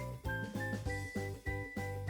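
Upbeat instrumental background music with a steady beat and a bright, tinkly melody.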